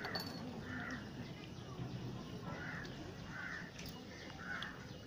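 Crows cawing in the background, a series of faint caws about a second apart.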